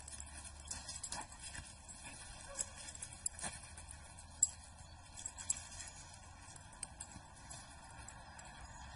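Faint, irregular soft taps and scuffs of a dog's and a cat's paws on leaf-strewn grass as they chase and tussle, over a low, steady hum.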